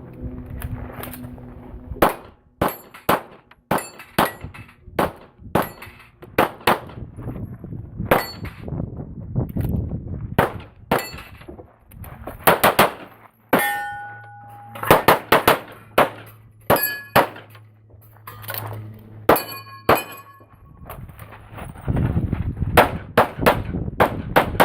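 A CZ Accu-Shadow pistol fired in a long run of sharp shots, mostly in quick pairs with short pauses between groups, as a USPSA stage is shot, with metallic clangs and rings from steel targets being hit.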